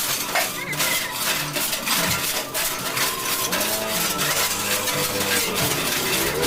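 Rapid metallic clicking and clinking, as of a chain hoist's chain running through its pulley, with a pitched hum rising and falling behind it.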